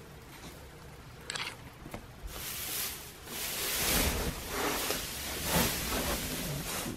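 Dry hay rustling and crunching, one short burst about a second in and then repeated bursts from about two seconds in, as the bedding over a sleeping piglet is disturbed.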